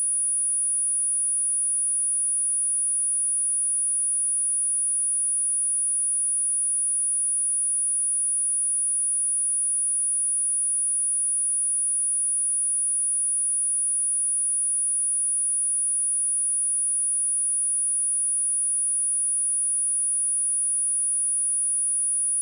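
Steady high-pitched 9754 Hz sine test tone, one pure unchanging pitch at constant level, used as a speaker test and speaker-cleaning tone.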